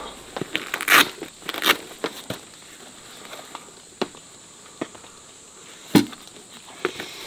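A canvas carrying case being opened by hand with two short scratchy rustles, then drinking glasses lifted out of it, giving a few sharp clicks and knocks of glass, the loudest about six seconds in.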